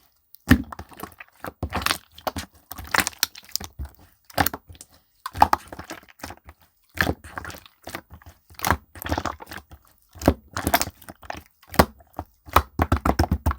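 Slime being squeezed, pressed and stretched by hand, giving irregular crackling, crunching bursts about once a second with short gaps between them.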